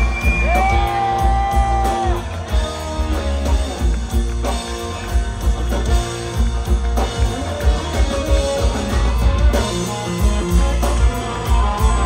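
Live country band playing an instrumental passage: guitar over a strong bass and drum beat, with long held lead notes that slide into pitch.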